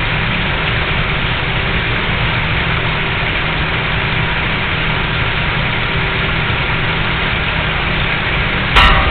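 Steady low rumble with hiss, level and unchanging. Near the end a sudden, much louder rush of noise breaks in: the onset of the second Pike River mine explosion.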